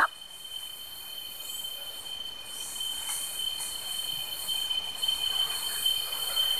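Steady, high-pitched chorus of forest insects, several thin ringing tones buzzing together without a break.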